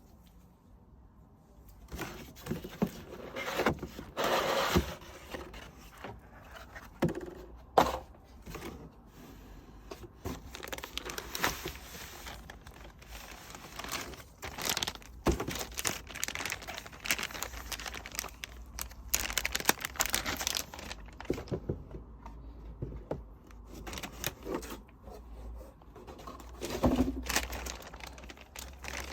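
Laptop packaging being unwrapped by hand: crinkling and tearing of wrapping with scattered clicks and knocks, starting about two seconds in.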